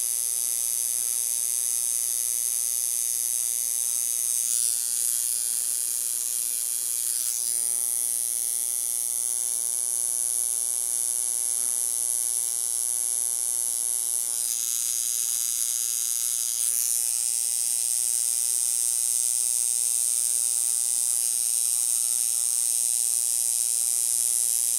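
Tattoo machine buzzing steadily as its needle draws dark lines into the skin.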